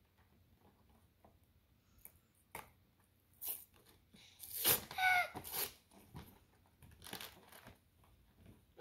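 Cardboard card-collection box being pulled and torn open by hand: scattered rips and scrapes, loudest about halfway through, with a short squeak in the middle of that loudest stretch.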